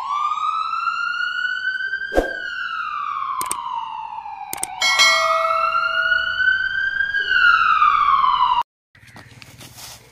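Ambulance-style wailing siren that slowly rises and falls in pitch twice, with a few sharp clicks, then cuts off suddenly near the end.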